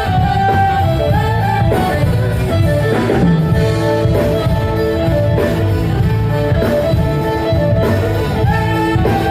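A live band playing through PA speakers during a sound check: guitar over sustained chords and a steady beat.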